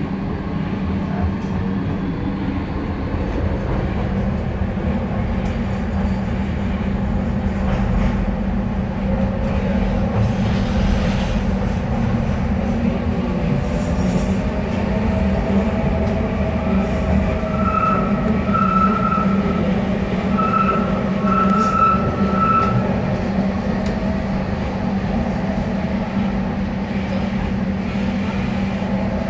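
Docklands Light Railway train running, heard from on board: a steady low hum over the rumble of wheels on track, with a motor tone rising slowly around the middle. A little past the middle, about five short, high wheel squeals.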